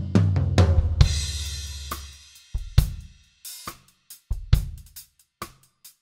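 Soo Custom New Fighter Series drum kit with hybrid maple-birch shells played through microphones: a tom fill stepping down in pitch lands about a second in on a cymbal crash and bass drum that ring out, then kick and snare strokes pick up a sparse beat.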